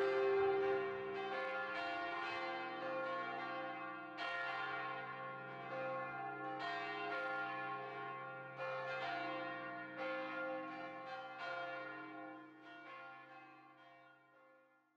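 Church bells ringing: a dozen or so strikes at uneven spacing, each ringing on and overlapping the next over a low steady hum, fading out to nothing near the end.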